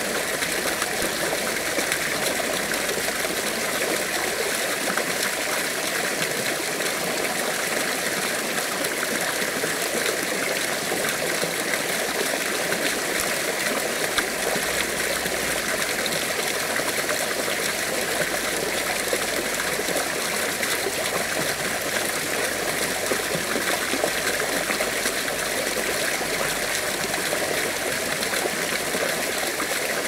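Water running at a garden pond: a steady, even trickling flow that does not change.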